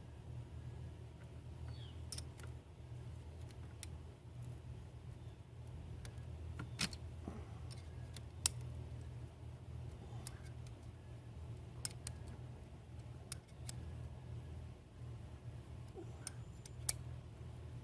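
Scattered sharp metallic clicks and snips of hand tools working a battery cable terminal, a few seconds apart, over a steady low hum.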